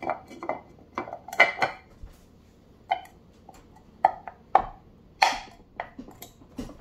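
Hard plastic parts of a Leader Ecoplus 230 pump clicking and knocking irregularly as the first impeller is fitted onto the shaft and pressed into the pump housing by hand.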